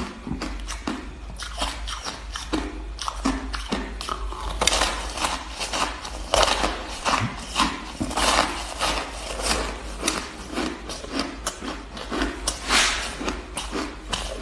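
A person biting and chewing crunchy blue-coloured ice, a fast, irregular run of crunches that grows busier about a third of the way in and again near the end.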